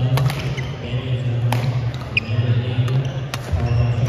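Badminton rally: sharp cracks of rackets striking a shuttlecock, a few times a second and a half to two seconds apart, over a steady low hum and background chatter in the hall.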